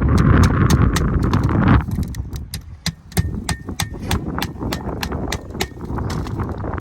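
Handwork on an asphalt shingle roof: a rough scraping rush for about two seconds, then a run of sharp, light clicks and taps, several a second.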